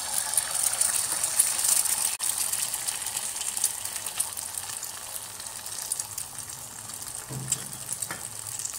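An egg frying sunny-side up in hot oil in a pan: a steady sizzle with fine crackles, loudest in the first couple of seconds and easing gradually.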